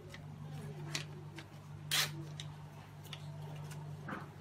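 Scattered small clicks and handling noises from hands working on the analyzer's equipment, with one sharper click about two seconds in, over a steady low hum.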